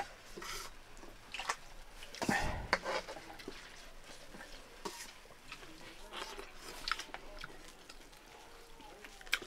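Scattered light clinks and taps of steel plates and bowls, with chewing, as rice is eaten by hand; one louder knock about two and a half seconds in.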